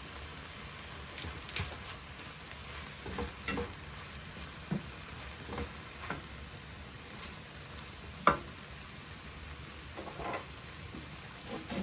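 Minced meat, peppers and mushrooms sizzling in a frying pan as a wooden spatula stirs them, scraping and knocking against the pan at irregular moments, with one sharper knock about eight seconds in.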